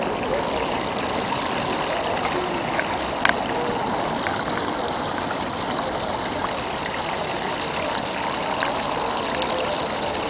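Steady sound of water flowing in shallow ornamental pools laid around tram tracks. A single sharp click comes about three seconds in.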